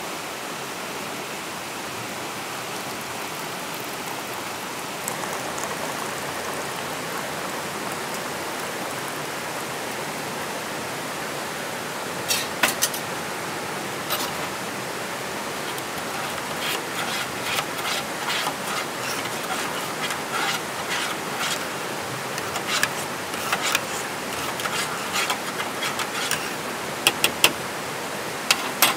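A rocky stream rushing in a steady wash. From about halfway through come light clinks and taps of metal camp cookware, a titanium mug and kettle being handled.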